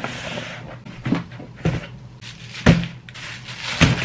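Cardboard shipping boxes set down one after another on a wooden desktop: four dull thumps, the loudest about two-thirds of the way through, with rustling of packaging between them.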